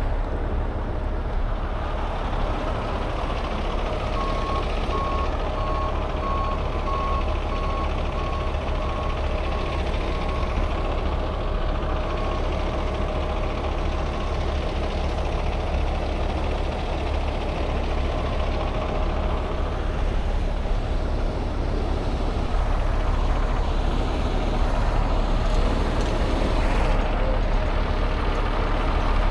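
Heavy diesel truck engine running steadily at a low rumble, with a truck's backup alarm beeping just over once a second for about eight seconds in the first half.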